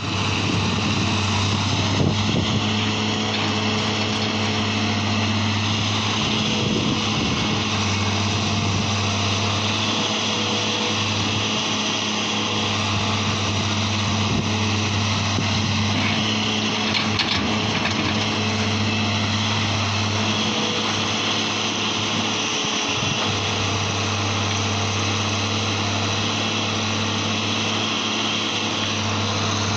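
Excavator's diesel engine running steadily under work, with a few faint clanks from the machine.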